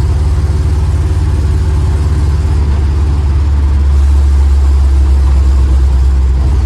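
An old vehicle's engine and drivetrain running under way, a steady low rumble that grows a little louder about four seconds in.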